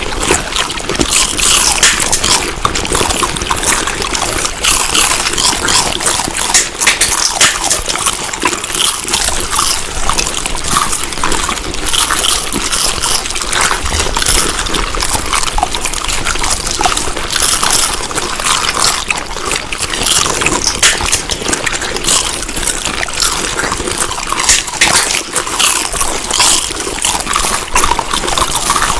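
Close-up chewing of food: a continuous, dense run of wet clicks, smacks and crackles.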